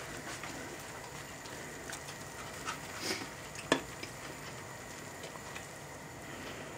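A thick cola-and-marshmallow soup simmering in a pan on a gas stove with a steady low hiss, while a metal spoon stirs it, scraping softly and clicking against the pan twice around three and a half seconds in, the second click sharp.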